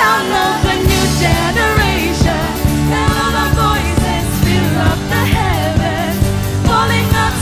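Live band and singers performing a Christian worship song, with sung vocals over bass, keys and a steady drum beat.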